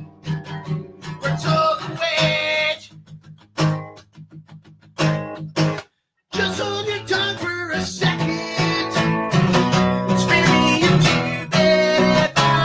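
Acoustic guitar strummed in a pop-punk song. Partway through, the strumming thins to a few single strokes and cuts out entirely for a moment about six seconds in, then the full strumming comes back.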